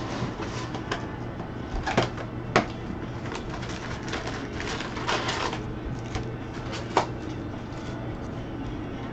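Trading-card box and packs being handled and opened by hand: scattered sharp clicks and knocks, with a rustle of cardboard or wrapper about five seconds in, over a steady low hum.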